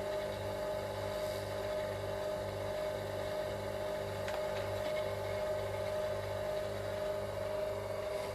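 Electric wire stripper's motor running with nothing feeding through it: a steady hum with a low throb pulsing a little under three times a second.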